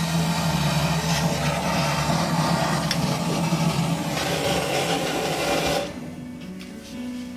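A motor-driven tool or appliance running, a steady hum under a rasping noise, that cuts off about six seconds in, leaving quieter music.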